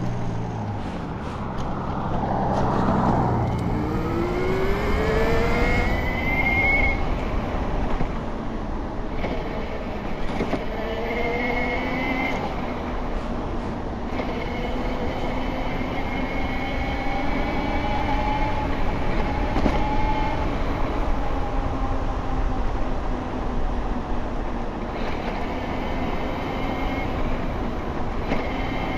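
72V BBSHD mid-drive e-bike motor whining under load during a ride, its pitch rising several times as the bike speeds up, over steady wind and tyre noise.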